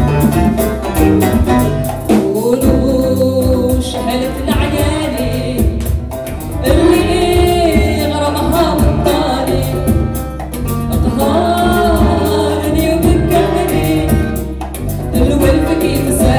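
Live band playing a tango-style arrangement of an Algerian song, with guitar, hand percussion, drums and keyboard. A singer comes in about two seconds in with long, wavering phrases over a steady bass and percussion pulse.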